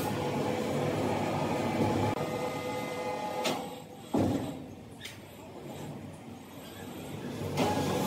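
Sawmill machinery running with a steady whine. It drops off about three and a half seconds in, a sharp knock comes just after, and it builds up again near the end.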